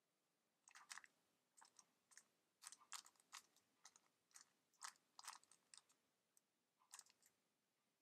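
Faint plastic clicks and clacks of a stickerless 3x3 speed cube's layers being turned by hand, in quick irregular runs with short pauses, as the moves that orient the last layer (OLL) are carried out.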